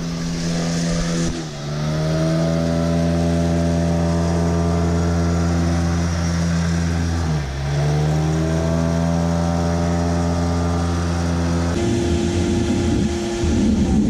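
Vacuum blower of a plate seeder running steadily with a motor hum. Twice, about a second and a half in and again about seven seconds in, its pitch sags and glides back up. About twelve seconds in the sound turns rougher and noisier.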